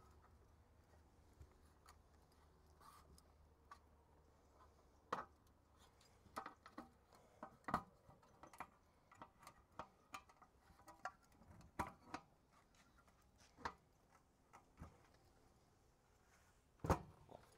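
Sparse light clicks and clacks of a GCI Outdoor Slim Fold Cooking Station being unfolded: its aluminum frame and slatted aluminum top knocking and latching into place, a cluster of them in the middle and two more near the end, with near silence between.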